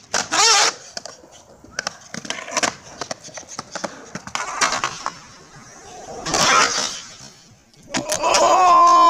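Skateboard rolling and clacking on a concrete ramp, then about eight seconds in the skater slams onto the concrete and lets out a long yell.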